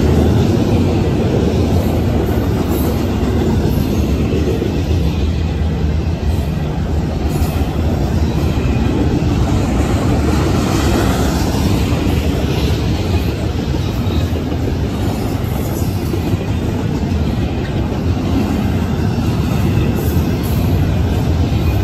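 CP Rail double-stack container freight cars rolling past close by: a steady, low-weighted noise of steel wheels running on the rails.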